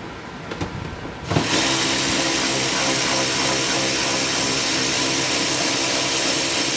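Cordless drill-driver motor running steadily, starting about a second in, as it backs a Torx 30 bolt out of a car door panel.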